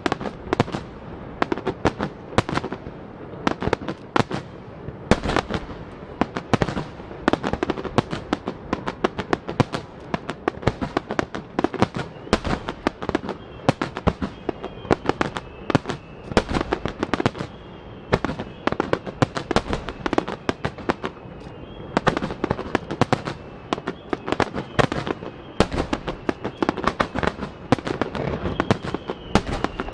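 Starmine fireworks finale: shells bursting in a continuous rapid barrage, several sharp reports a second. Faint high whistles sound over much of the second half.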